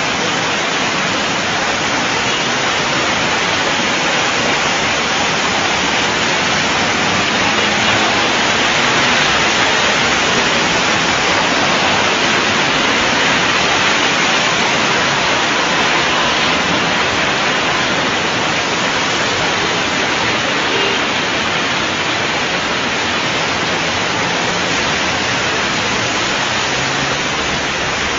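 Steady, even hiss of heavy rain, unbroken for the whole stretch.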